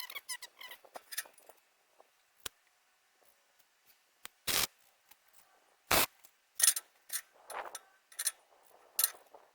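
Scattered sharp clicks and knocks of things being handled and set down, about half a dozen, the loudest two about four and a half and six seconds in.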